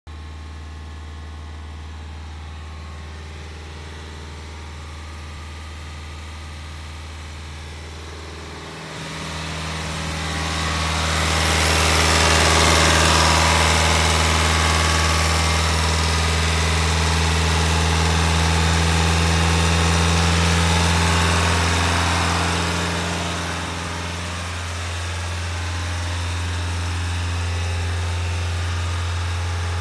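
Nissan Qashqai diesel engine running steadily. About nine seconds in it gets louder, with a strong rushing hiss for roughly a dozen seconds, then it eases back to a steady run. This is the engine being run during a DPF clean.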